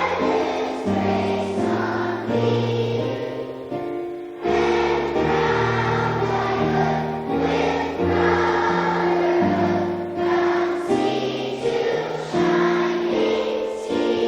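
A choir singing a song in long held chords, with a short break between phrases about four seconds in.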